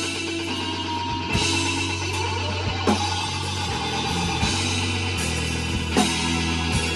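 Rock band playing live, with sustained bass notes, guitar and drum kit hits.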